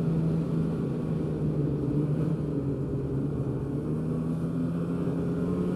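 2015 Polaris Pro S 800 snowmobile's two-stroke twin engine running steadily under way. Its pitch eases slightly in the middle and climbs a little near the end.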